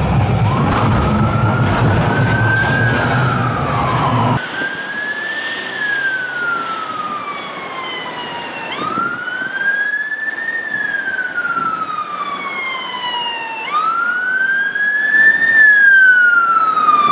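Norwegian police car siren in a slow wail, rising over about two seconds and falling over about three, about four times over. A low rumble underneath stops abruptly about four seconds in.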